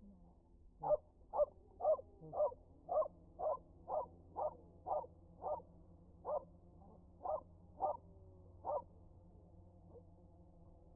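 Small white dog barking repeatedly, about two barks a second, stopping about nine seconds in.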